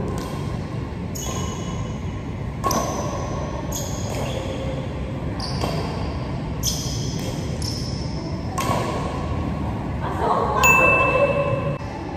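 Badminton rackets hitting a shuttlecock in a rally, sharp pings about once a second, each with a short ringing tail, echoing in a large sports hall. Near the end a louder, held high tone rises over the hall noise.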